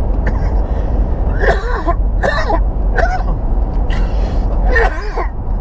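Steady low road and engine rumble inside a moving vehicle's cabin, with a few short vocal sounds from a man breaking through it.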